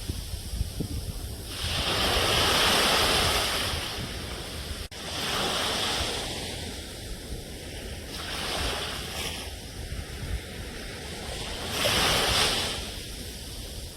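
Ocean waves washing onto a shore in repeated surges, about four swells, over a steady low rumble. There is a momentary dropout about five seconds in.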